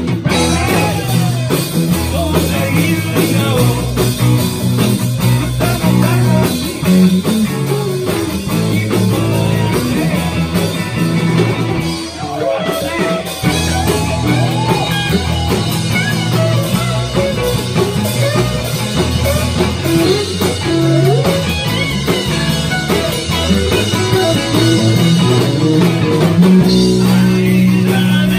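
A live rock and roll band playing loudly: electric guitars, electric bass and drum kit.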